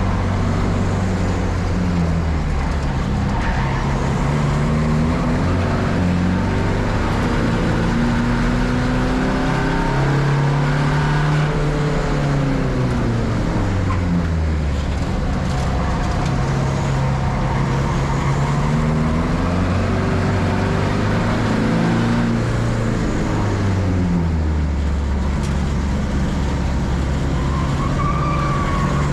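Turbodiesel engine of a Volkswagen Polo Cupra TDI race car running hard at steady loudness, its pitch climbing under acceleration and dropping again several times through gear changes and braking. There is a brief tyre squeal near the end.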